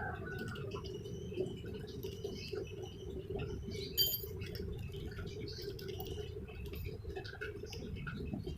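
Small metal scope-mount parts and hex keys being handled, with scattered light clicks and a sharp metallic clink about four seconds in, over a steady low hum.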